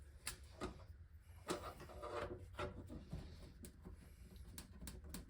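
Hands working on an aquarium LED light cover: a series of faint clicks and short scraping, rubbing sounds.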